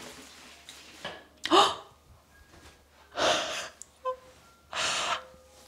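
A woman gasping three times, about a second and a half apart. They are short, breathy catches of breath, the first with a bit of voice in it.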